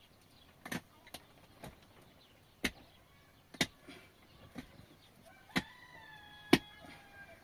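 A series of sharp knocks, about one a second at uneven spacing, the loudest near the end. About three-quarters of the way through, a drawn-out high call or squeak lasts about a second and a half.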